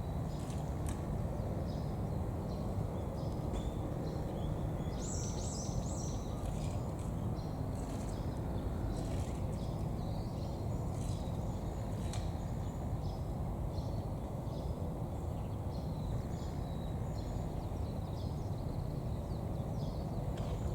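Gorilla chewing vegetables with irregular, scattered crunches over a steady low background noise. A brief burst of high bird chirps comes about five seconds in.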